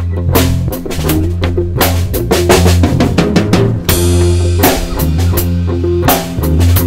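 Live rock band playing instrumentally: electric guitar and bass guitar over a drum kit keeping a steady beat. A cymbal crash comes about four seconds in.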